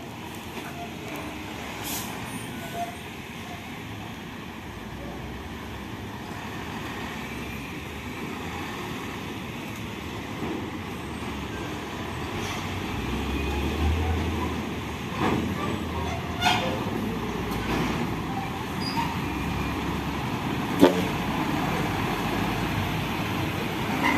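UD Trucks Quester GWE 280 tractor unit's diesel engine running, its low rumble swelling about halfway through. A few short sharp sounds come in the second half, the loudest near the end.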